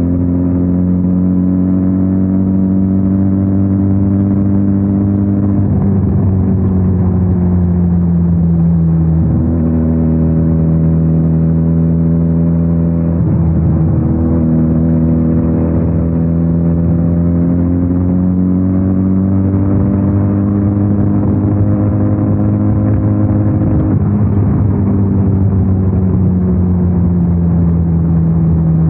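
Benelli 302R's 300 cc parallel-twin engine running under way, its note slowly rising and falling. The note breaks and drops several times, as with gear changes.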